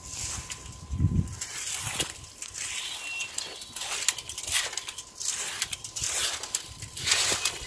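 Rake scraping across bare soil, dead leaves and twigs in repeated strokes, about one or two a second.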